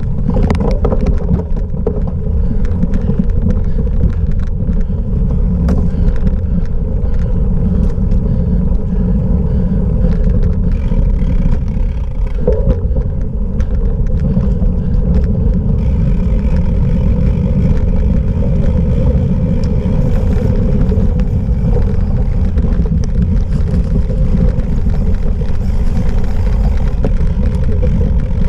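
Steady wind and tyre rumble on a cyclocross bike's onboard camera, with frequent clicks and knocks as the bike rattles over rough off-road ground.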